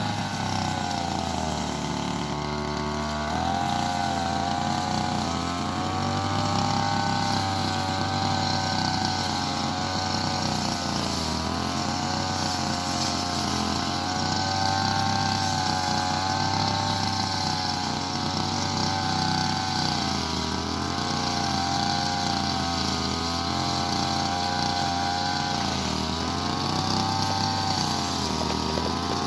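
Petrol brush cutter (motorised grass cutter) running continuously, its engine speed rising and falling as it cuts grass, dropping lower for a moment a couple of seconds in.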